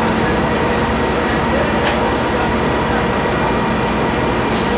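INKA K3 economy passenger coach rolling slowly along factory yard rails, a steady rumbling noise with a faint constant machine hum. There is a short hiss near the end.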